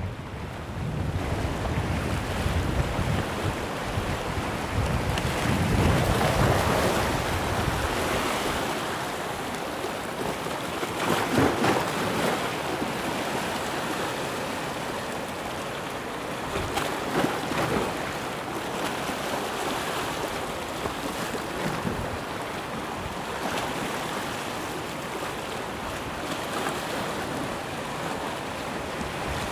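Small sea waves washing and splashing at the shoreline, swelling in surges every few seconds. Wind buffets the microphone with a low rumble during the first few seconds.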